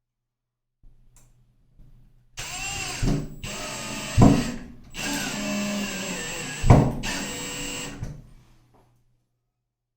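Power drill fitted with a Phillips bit driving screws, running in three short bursts with two brief stops and two loud knocks along the way.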